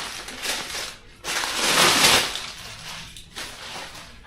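Packaging being handled, rustling and crinkling in uneven waves, loudest for about a second near the middle.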